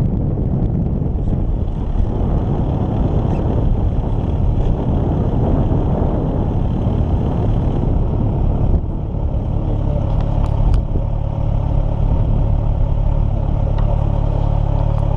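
A motor vehicle driving, with steady engine and road noise; from about nine seconds in, a steadier engine hum settles in.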